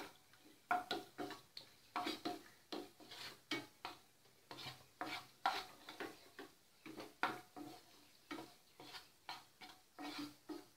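Wooden spatula stirring cashew nuts frying in ghee in a nonstick pan: a quick run of short scraping strokes, about two or three a second, with the ghee sizzling. The cashews are being roasted lightly.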